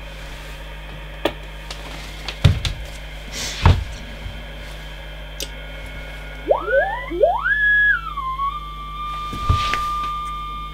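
Single-sideband test tone from an Icom IC-201 2 m transceiver, fed by a tone generator and heard through a monitoring receiver's speaker. About two-thirds in, a whistle glides up in pitch and then holds steady. A few clicks of knobs and switches come before it, over a faint steady hum.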